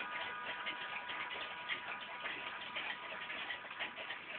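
Small Junghans pendulum wall clock from 1967 ticking steadily.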